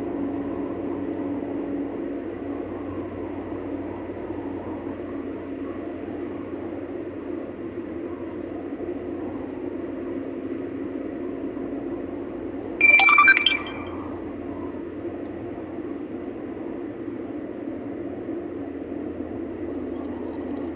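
Steady road and engine noise inside a moving car's cabin, an even low rumble with tyre hiss. A little past halfway, a brief high-pitched tone sounds for under a second, louder than the road noise.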